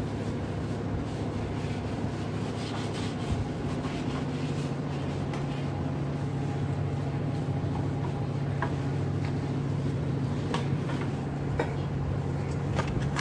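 A steady low mechanical hum, with a few light knocks near the end as gas-stove parts are moved on the counter.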